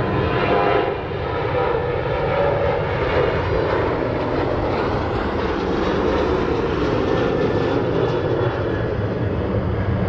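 Boeing 787 turbofan engines running at taxi power, a steady jet rumble and hiss, with a faint whine that fades about a second in.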